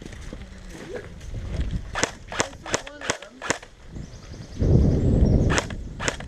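Airsoft guns firing single shots, about seven sharp cracks spread over a few seconds, with a loud low rumble on the microphone for about a second in the second half.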